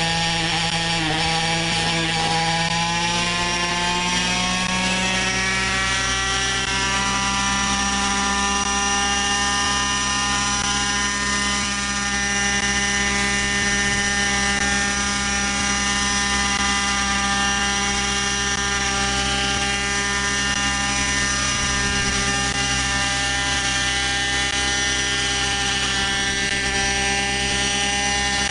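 Century Predator Gasser RC helicopter's two-stroke gasoline engine and rotor head spooling up, its pitch rising over the first six seconds, then running at a steady pitch as the helicopter lifts off and holds a low hover.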